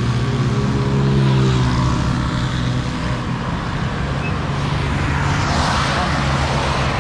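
Road traffic on a wet road: a vehicle's engine hum fades over the first two seconds, then a car's tyres hiss on the wet asphalt as it passes about five to six seconds in.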